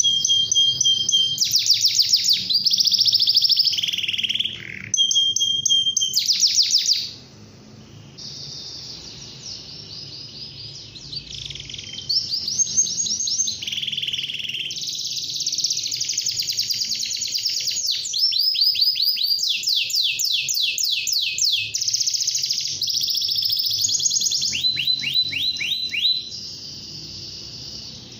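Domestic canary singing a long song of fast trills and rolls, each a rapid run of the same note repeated, changing from one tour to the next. About seven seconds in the song drops to a softer passage for several seconds before it comes back loud.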